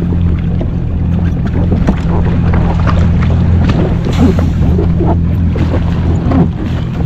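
Yamaha jet ski engine running with a steady low hum, with water splashing against the hull and wind buffeting the microphone.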